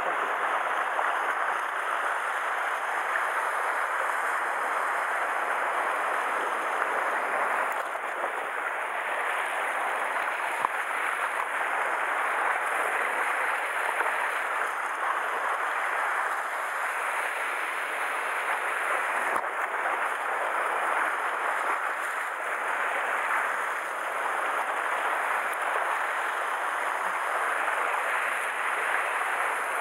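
Sea surf washing and foaming over rocks: a steady rushing wash that swells and eases slightly.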